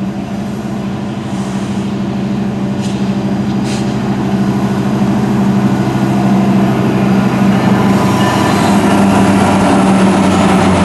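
Diesel locomotive of a freight train approaching, its engine running with a steady low drone that grows steadily louder, with more rumble and clatter building near the end.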